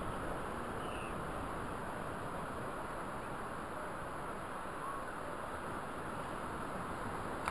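Steady wind and ocean surf noise, with a few faint, short bird calls.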